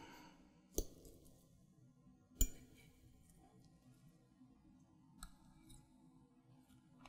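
Metal fork cutting through a slice of cheesecake and clicking against a china plate: three short sharp clinks, the second the loudest, over faint room tone.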